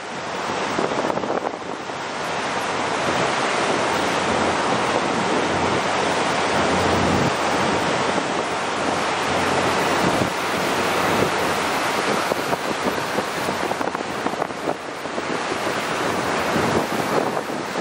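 Steady rush of wind buffeting the microphone mixed with water washing past the hull of a moving harbour ferry.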